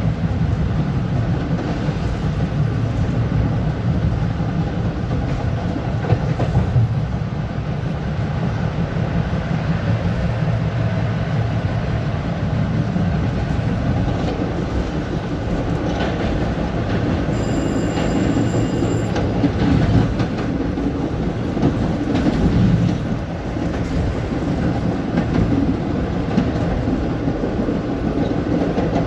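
LIRR M3 electric multiple-unit train running on the rails, a steady rumble of wheels and motors with some clickety-clack. A brief high-pitched tone sounds for about a second and a half, a little past halfway.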